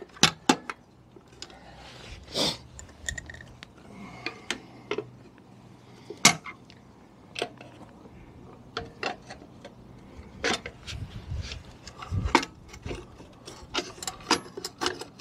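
Irregular clicks, knocks and short scrapes as a screwdriver prises and hands work a 50cc scooter's metal transmission cover loose. The cover is held fast on its locating dowels. A few dull thumps come about two-thirds of the way through.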